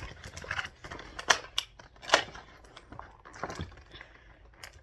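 Plastic blister packaging and cardboard crackling and clicking as an action figure is pulled out of its box: irregular sharp clicks, the loudest about one and two seconds in.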